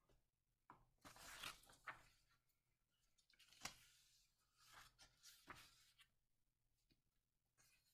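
Near silence: room tone with a few faint rustles and a single sharp click a little past halfway.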